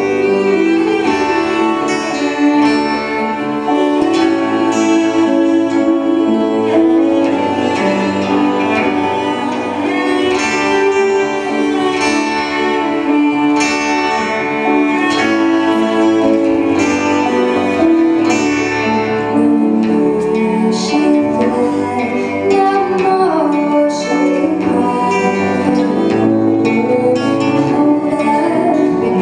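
English folk song performed live on plucked and bowed strings, with a woman singing at times.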